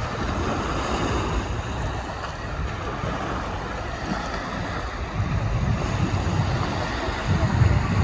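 Small sea waves breaking and washing onto a sandy shore, with wind rumbling on the microphone that grows stronger over the second half.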